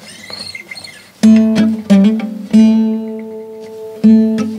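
Selmer-style gypsy-jazz acoustic guitar with an oval soundhole, strummed: after a quiet first second, four chords struck about a second apart, each left to ring.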